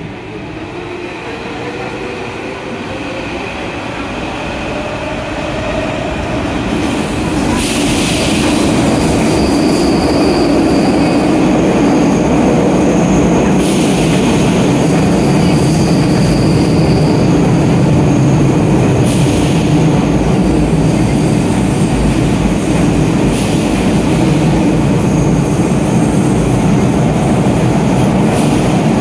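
Athens Metro Line 2 train heard from inside the car as it pulls away into the tunnel: a motor whine rises in pitch over the first several seconds while the noise builds. It then settles into a steady, loud running rumble, with brief high wheel squeals and a few short hissing rushes.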